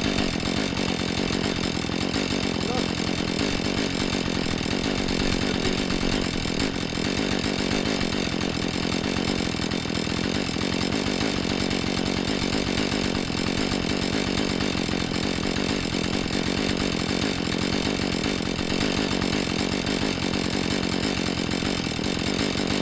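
Husqvarna 435 two-stroke chainsaw running steadily at a constant high pitch while cutting into a tree trunk to fell it.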